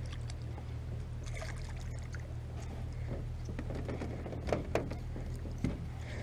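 Water splashing and trickling as a hooked largemouth bass is played in to the side of the boat, with a few light clicks and a steady low hum underneath.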